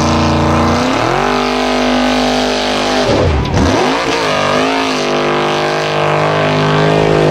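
Formula Offroad buggy engine at high revs, driving up a steep dirt hill climb. The revs rise about a second in, dip sharply and pick up again twice near the middle as the throttle comes off and on, then hold high.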